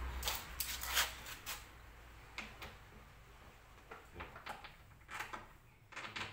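Scattered light clicks and knocks, a few each second, from tools and parts being handled. A low hum fades out about a second in.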